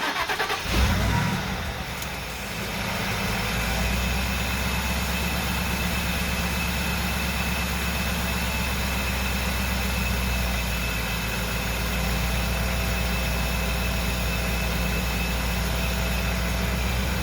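The supercharged 5.4-litre V8 of a 2002 Ford Lightning pickup starts up about a second in and settles into a steady idle. The engine is running freshly refilled with coolant after a hose repair, warming up to be checked for coolant leaks.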